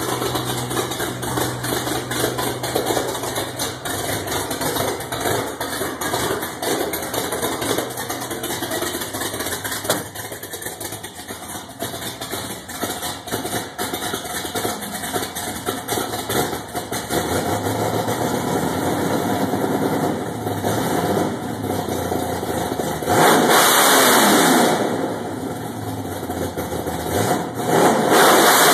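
Chevrolet V8 on open headers idling with the lumpy beat of a Comp Cams Big Mutha Thumpr camshaft. Near the end it is revved twice, louder each time, the revs falling back to idle after the first.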